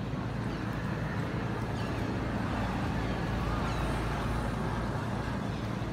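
Steady low rumble of outdoor background noise, like distant engine or traffic noise, with a few faint, short, falling high chirps.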